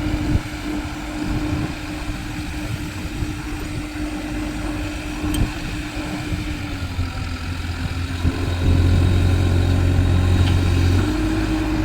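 Caterpillar excavator's diesel engine running steadily. About two-thirds through, its note sags slightly and a heavy low rumble comes in for a couple of seconds. The note then rises again near the end.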